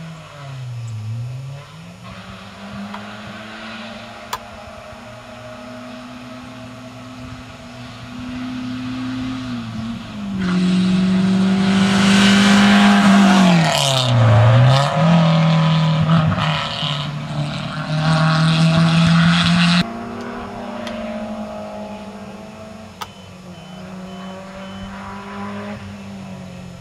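Rally car engine at high revs: first a car further off, its note dipping and rising, then a small hatchback rally car coming through close and loud. Its engine note drops briefly as the driver lifts and changes down, then climbs and holds high before cutting off suddenly about two-thirds of the way in, leaving a fainter engine note.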